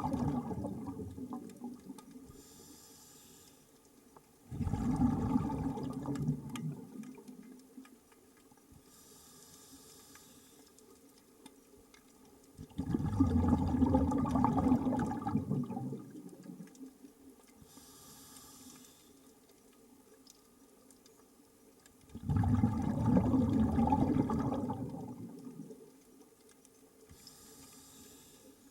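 A scuba diver breathing underwater through a regulator: a faint high hiss on each inhale, then a loud rush of exhaled bubbles that fades away. About four slow breaths, the exhales several seconds apart.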